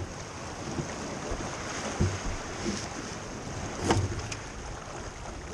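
Wind buffeting the microphone over water rushing past the hull of a small sailing keelboat under way in a chop, with two sharp knocks about two seconds apart.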